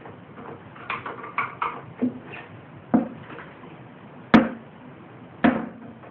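Scattered knocks and clunks of a lawn mower engine and its metal parts being handled and set down, with one sharp, loud knock about four seconds in.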